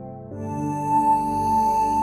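Slow, calm meditation music of long held tones; a new chord comes in about a third of a second in, with a bright high tone ringing over it.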